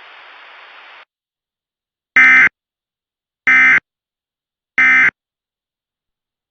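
Emergency Alert System end-of-message signal: three short buzzy bursts of SAME digital data, about 1.3 s apart, marking the end of the warning. A second of faint hiss comes before them.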